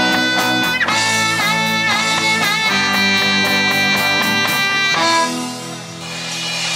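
Live rock band playing the closing bars of a song: an electric guitar lead with string bends over drums, bass and keyboard. About five seconds in the band stops on a final chord that is left to ring out.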